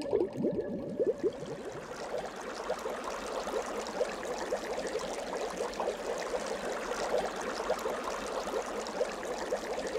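Bubbling-water sound effect: a dense run of small bubbles, each a quick rising blip, with the biggest and loudest ones in the first second or so.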